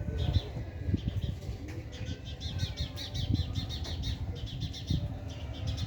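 Birds chirping: quick runs of repeated high notes, about eight a second, starting and stopping through the stretch, over a steady low rumble with occasional soft thuds.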